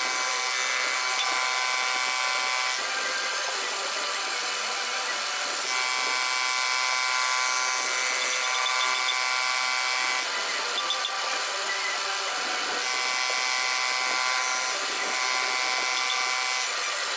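Milling machine cutting metal: a steady machining noise with a whine that comes in for a few seconds at a time, three times.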